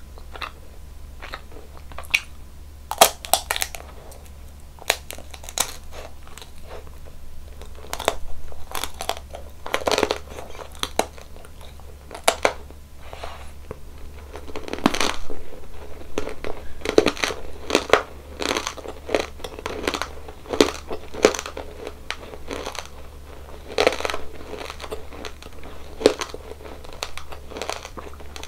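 Close-miked chewing and crunching of a crunchy ice cream dessert, with irregular sharp crunches and wet mouth sounds, over a faint steady low hum.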